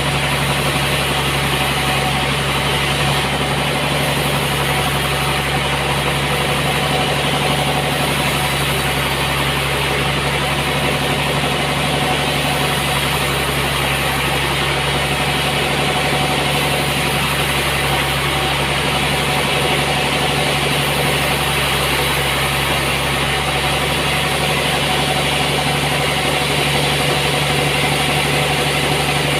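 Sawmill machinery running steadily, a constant low motor hum with no change in pitch or level.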